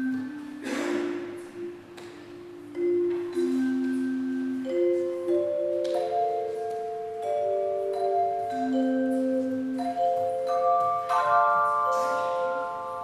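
Handbell choir ringing a slow tune: single bell notes ring on and overlap, building into fuller chords near the end.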